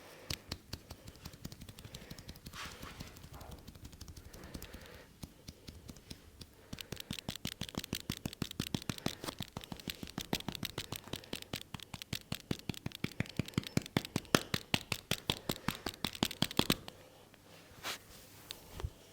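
Hands striking a person's head and shoulders in a massage: a fast, even run of slaps and taps, about six a second for roughly ten seconds, that stops abruptly. Before it come softer, irregular taps and rubbing on hair and skin.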